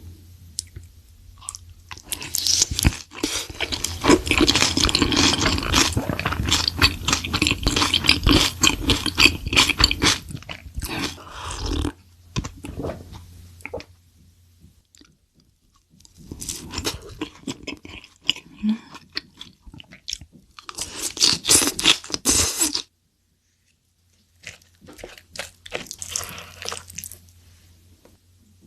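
Close-miked eating: crunchy bites and chewing of food, dense for about ten seconds, then in shorter bursts with brief pauses.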